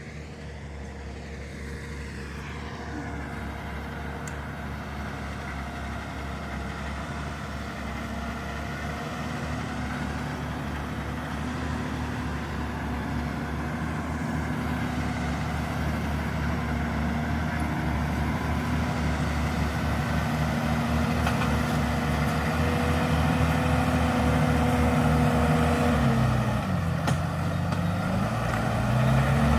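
Valtra Q Series tractor's six-cylinder diesel engine working under load while pulling a five-furrow plough, growing steadily louder as it comes closer. Near the end the engine note dips briefly and then picks back up.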